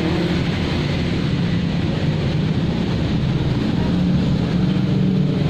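Steady low mechanical rumble with a constant hum, like a running engine or motor, that does not let up.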